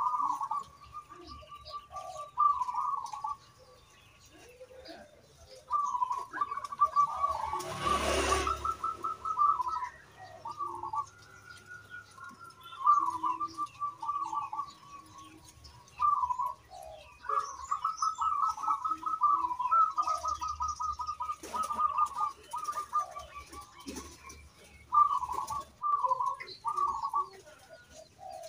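Zebra dove (perkutut) cooing over and over: rapid, stuttering pulsed phrases of one to three seconds each, separated by short pauses. A brief burst of noise cuts in about eight seconds in.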